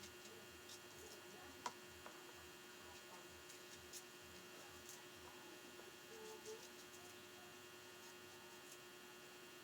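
Near silence: a steady electrical hum, with a few faint clicks.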